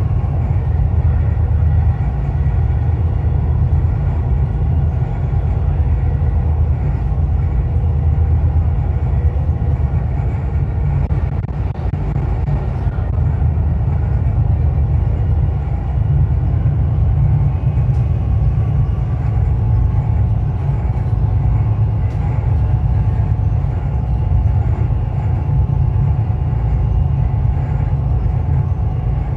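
Dubai Metro train running at speed on elevated track, heard from inside the car: a steady low rumble with a faint whine above it.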